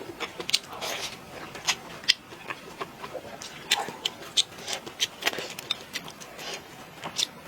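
Close-up eating sounds: a person chewing and biting, with irregular sharp mouth smacks and clicks, a few each second.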